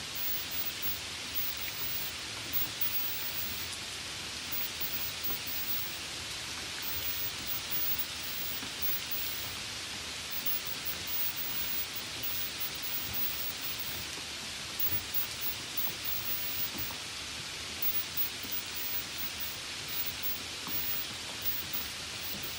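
Steady light rain: an even, unbroken hiss of falling drops.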